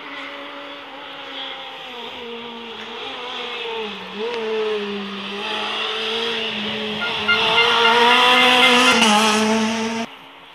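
Rally car engine at high revs, its pitch rising and dipping as the car accelerates, changes gear and brakes. It grows louder, is loudest in the last few seconds, and cuts off abruptly about ten seconds in.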